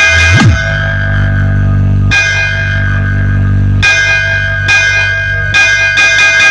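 DJ sound-check music: ringing bell-like chords over a heavy sustained bass, with a quick bass swoop about half a second in.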